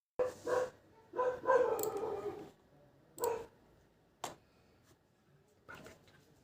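A few short, pitched animal-like calls, one of them longer, with a single sharp click about four seconds in.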